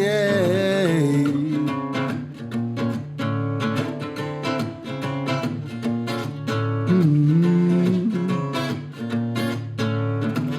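Acoustic guitar strummed in a steady rhythm as an instrumental break between verses of a love song, after a sung "yeah" about a second in.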